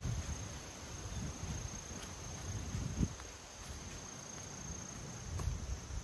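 Steady high-pitched trill of insects in the woods, under low irregular thuds and rumble from walking and carrying the microphone, with one sharper thump about three seconds in.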